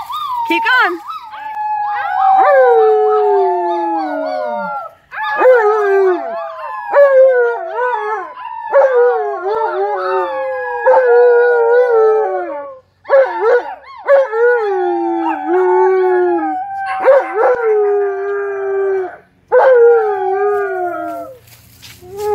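An Alaskan malamute howling along with several children who imitate howls, their voices overlapping in long, falling howls. The howls come in a series of rounds with short breaks between and die away shortly before the end.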